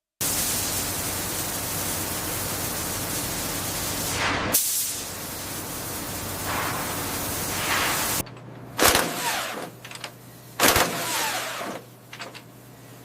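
Heavy industrial noise: a loud, steady rushing hiss that cuts off abruptly about eight seconds in. It is followed by a low steady hum and two heavy metallic bangs that ring on briefly.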